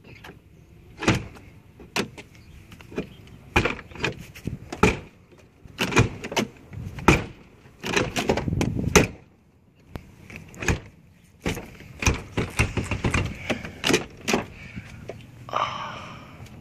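Chevy S10 pickup's driver door being worked by hand: a string of irregular clunks, knocks and latch clicks as the door is swung and pushed against its striker. The door sags on worn hinge pins and bushings.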